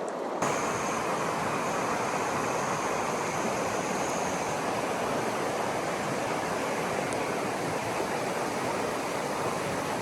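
Steady rushing water of a small mountain stream, coming in abruptly about half a second in and holding even.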